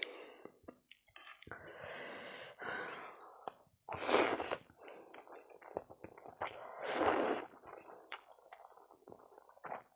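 Spicy pork keema noodles slurped up in two loud, hissing sucks, about four seconds in and again about seven seconds in. Between them come small wet mouth clicks of chewing.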